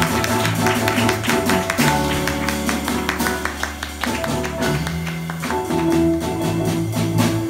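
Live band playing: flute over a drum kit and keyboard, with many quick, sharp percussive taps.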